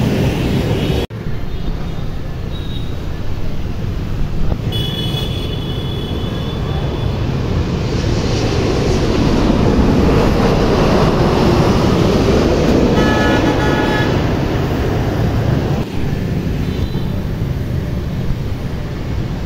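Jet engines of a VietJet Airbus A321-211 (CFM56 turbofans) passing low overhead on final approach. The noise swells to a peak about halfway through and then fades, over steady city traffic.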